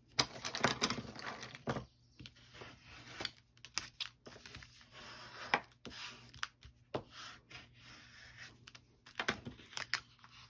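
Folded cardstock card being opened, closed and handled: paper rustling and scraping, dense for the first two seconds, then scattered light taps and clicks, with another cluster near the end.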